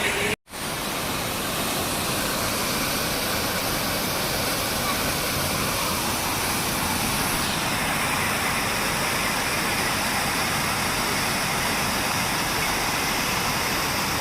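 Heavy floodwater rushing over an overflowing dam: a steady, loud wash of water noise. The sound cuts out for a moment about half a second in.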